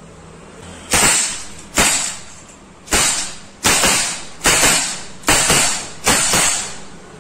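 Webley Mark VI CO2 air revolvers firing seven shots, each a sharp crack under a second apart with a short ringing tail.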